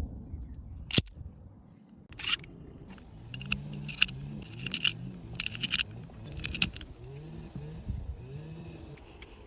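Sharp metallic clicks and rattles of a pistol being handled, a dozen or so spread over several seconds. A low wavering hum runs under the clicks in the middle.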